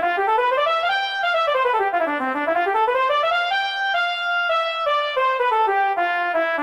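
Music: a solo trumpet-like brass melody running quickly up and down in stepwise scales, with no bass or beat underneath, coming in abruptly as a thumping dance track cuts off.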